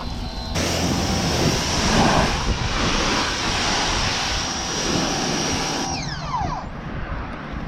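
Steady, loud rushing noise from a motor-driven car-washing or drying machine, such as a pressure washer or blower. It starts abruptly, cuts off about six seconds in, and a falling whine follows as the motor winds down.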